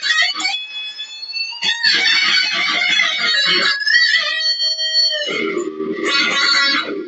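Electric guitar shredding a solo: fast runs of notes broken by a couple of long held notes, one of them bent in pitch about four seconds in.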